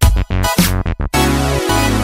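Electronic dance music with a heavy beat. For about the first second it stutters in short clipped hits with brief gaps, then runs on without a break.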